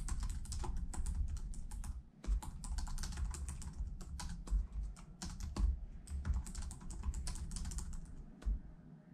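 Fast typing on a laptop keyboard: a quick, uneven run of light key clicks, with a short pause about two seconds in.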